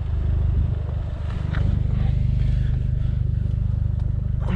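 Alfa Romeo 159 TBi's turbocharged 1.75-litre four-cylinder petrol engine idling steadily through a full custom exhaust, with a low, evenly pulsing exhaust note.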